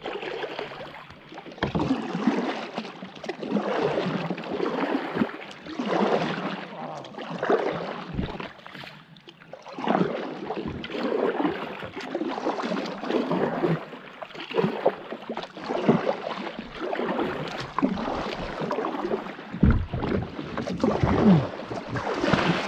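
Kayak paddle blades dipping and splashing through calm water, a stroke about every second, with a few dull knocks in between.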